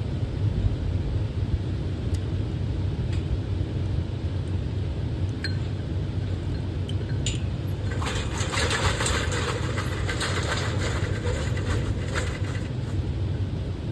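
Vehicle driving with a steady low rumble, joined about eight seconds in by several seconds of dense rattling and crackling.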